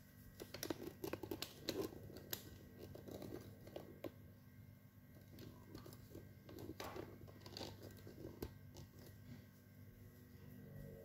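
Faint crinkling and rustling with scattered sharp clicks, coming in two spells: one near the start and one a little past the middle.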